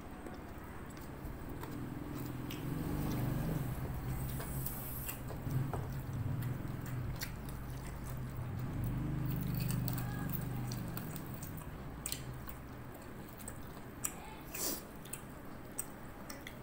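A person chewing a mouthful of rice close to the microphone, with scattered wet mouth clicks.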